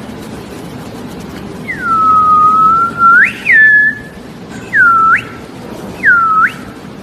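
Someone whistling four swooping notes, each dipping in pitch and then sweeping sharply up; the first is long and held low before its rise, and the last two are short. Steady low background noise runs underneath.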